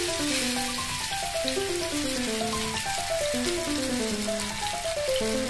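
Fish steaks sizzling as they fry in oil in a grill pan, with background music of short notes stepping downward in repeated phrases over the hiss.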